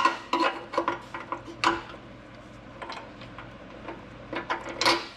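Metal clinks and knocks as a metal tube is worked into a motorcycle's frame and swing arm as a stand-in for the rear shock. It comes as a run of irregular light clicks, with louder knocks about a second and a half in and again near the end.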